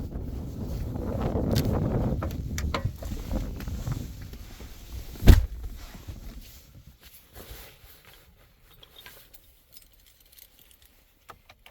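Rustling and handling noise, then a single heavy slam of a pickup truck's metal panel shutting about five seconds in. After that it is nearly quiet, with a few small clicks like keys.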